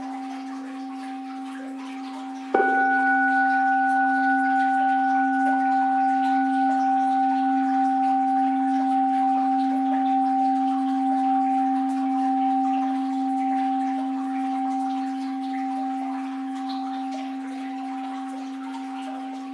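Orin, a Japanese Buddhist bowl bell, struck once about two and a half seconds in, then left to ring on with a low hum and several higher steady tones that fade slowly. A faint wash of flowing water lies underneath.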